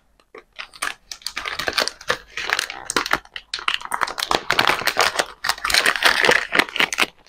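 Plastic packaging rustling and crinkling as products are handled, a dense run of irregular crackles that cuts off abruptly near the end.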